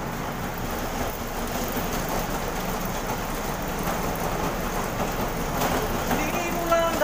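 Steady, even running noise of a bakery dough roller machine as dough is fed between its rollers for kneading. Near the end a short melody of stepped notes begins over it.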